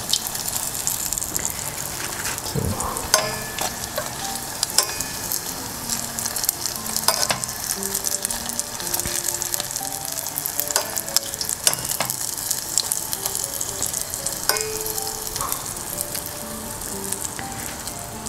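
Pork-filled wontons deep-frying in hot oil in a stainless steel saucepan: a steady sizzling crackle. Now and then a sharp click of metal tongs against the pan as pieces are turned and lifted out.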